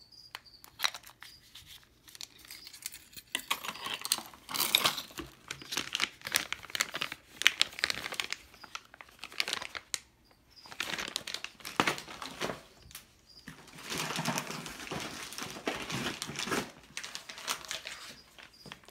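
Packaging crinkling and items being handled in a cardboard box: irregular rustling with scattered clicks, in two long stretches with a short pause between.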